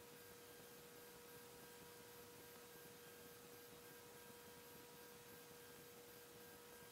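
Near silence: a faint steady tone under low hiss, with no handling sounds.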